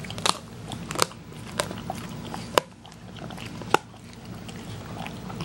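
Newfoundland dog chewing a raw chicken wing, its teeth crunching through the bones with about five sharp cracks spread over a few seconds.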